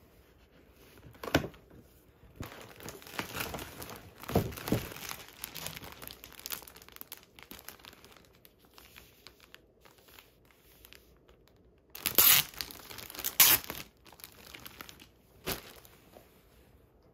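Clear plastic wrapping around a T-shirt crinkling and rustling as it is handled and unwrapped, in irregular bursts with quiet gaps; the loudest crinkles come about twelve seconds in.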